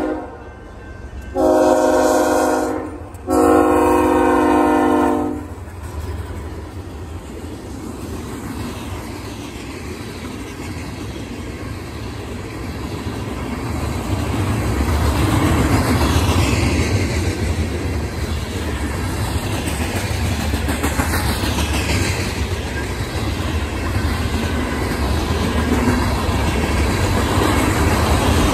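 Freight locomotive's chime horn sounding for a grade crossing: one blast cuts off right at the start, then two more blasts of about two seconds each. The freight train then rumbles past, its cars' wheels clacking over the rail joints, louder from about halfway through.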